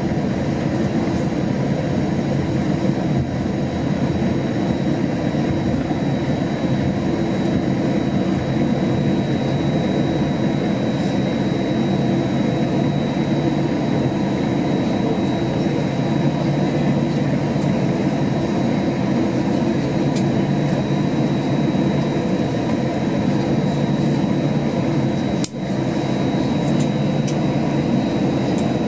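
Steady cabin noise inside an Airbus A321 taxiing on the ground: engines at idle and the air conditioning rushing, with a thin steady high whine over a low rumble. A single brief click with a short dip in level about 25 seconds in.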